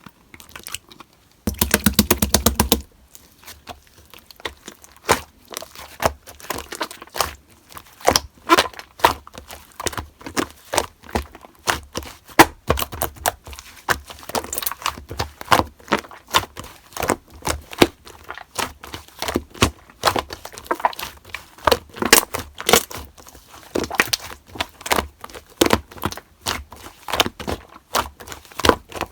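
Slime being squeezed and poked by hand, giving irregular sticky clicks and crackling pops. About a second and a half in comes a loud, fast run of clicks lasting just over a second.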